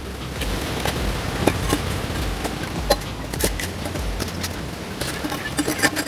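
Clay bricks knocking and clinking irregularly as they are stacked by hand into a dry-laid brick rocket stove, over a steady background hiss.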